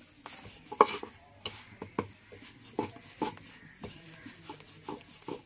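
Ridged wooden rolling pin rolling out paratha dough on a thick wooden board, giving a string of irregular light knocks and clicks, about two a second.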